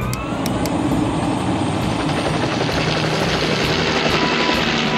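Rescue helicopter starting up: a rising whine at the start, then steady engine and rotor noise that builds slightly as it spools up.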